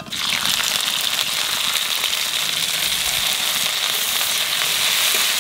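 Ginger and green chilli paste dropped into hot oil tempered with panch phoron in a karahi, sizzling loudly and steadily from the moment it lands.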